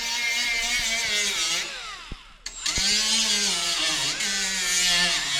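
Handheld electric grinder running in two stretches with a short break about two seconds in, its motor pitch sagging as it bears down on the metal.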